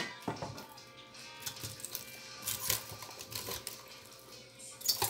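Caramel-coated popcorn rustling with light scattered clicks as it is stirred in an enamel bowl with a wooden spoon and then mixed by hand. A spoon knocks against the bowl right at the start, and faint music plays behind.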